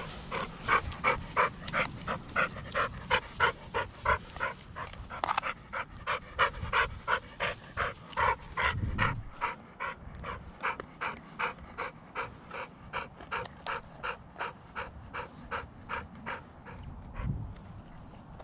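Dog panting hard and fast, about three breaths a second, winded from running.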